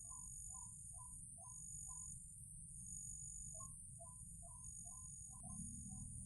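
White-breasted waterhen (ruak-ruak) calling faintly: short two-part notes repeated about twice a second, with a brief pause in the middle. Under it runs a steady high-pitched drone and a low rumble.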